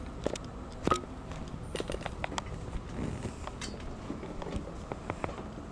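Scattered small clicks and knocks, the sharpest about a second in, from a camera held in the hand and moved around while lighting gear is handled.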